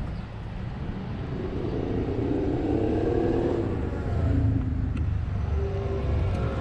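A motor vehicle running, a low rumble that grows to its loudest about four seconds in and then eases off.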